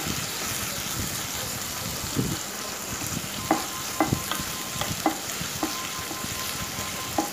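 Sliced onions sizzling in oil in a nonstick kadai while a spatula stirs them: a steady frying hiss, with the spatula clicking against the pan now and then, more often in the second half.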